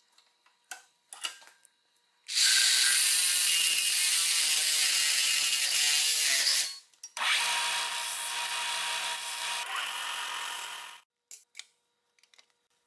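TIG welding arc on aluminum, a steady loud buzzing hiss, struck twice: about two seconds in for over four seconds, then again after a short break, a little quieter, for nearly four seconds.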